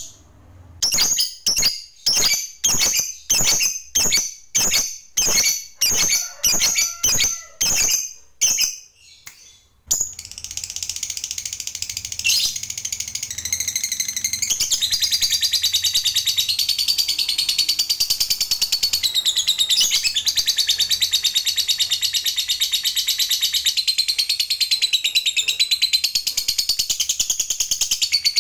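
Masked lovebird calling. First comes a run of short, sharp chirps, about two a second. From about ten seconds in, they give way to a long, unbroken, rapid chattering trill: the 'ngekek panjang' long chatter that lovebird keepers prize as a sign of a bird in full song.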